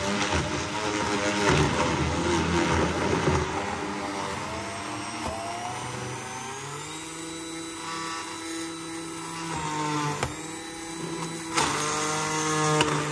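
Braun MultiQuick 9 hand blender's motor running with its blade grinding almonds while pressed down hard. Hard pieces clatter over the first few seconds, then the motor settles into a steadier whine whose pitch shifts as it slows a little under the load without stalling.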